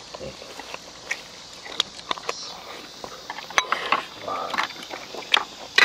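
Chopsticks and spoons clicking against bowls and plates, with chewing: scattered light clicks, more frequent near the end.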